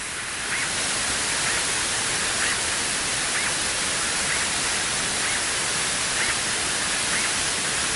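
Steady static hiss on the aircraft's radio and intercom audio feed, with faint small chirps about once a second.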